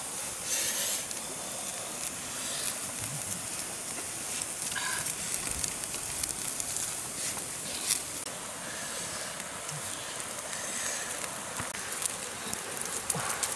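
Wood campfire crackling, with scattered sharp pops, the loudest about eight seconds in, over the steady rushing hiss of a river.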